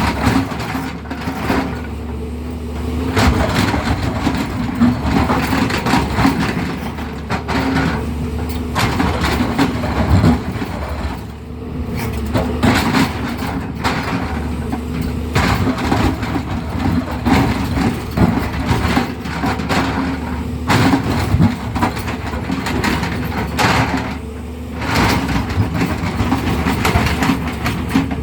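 Tata Hitachi EX200 Super excavator's diesel engine running steadily under load, with irregular knocking and scraping as the bucket cuts into a hard road surface.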